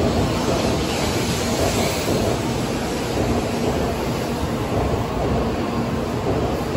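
Tokaido Shinkansen bullet train running past the platform: a steady, loud rush of wheel and air noise.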